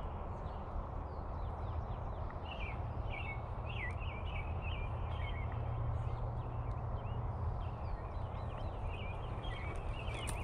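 Small birds chirping over and over, short quick calls that keep coming, over a steady low rumble. A few sharp clicks near the end as a spinning reel is handled.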